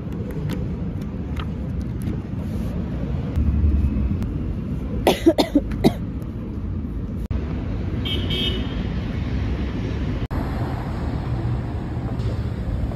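Outdoor traffic ambience with a steady low rumble of passing vehicles, broken about five seconds in by four short car-horn toots in quick succession.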